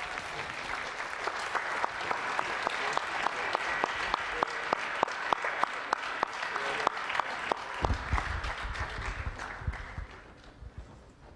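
Audience applauding, with sharp claps standing out in a steady beat of about three a second. The applause fades away about ten seconds in, with a few low thumps near its end.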